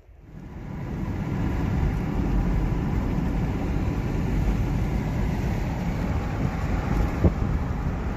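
Car driving along a road: a steady low rumble of road and wind noise that fades in over the first second.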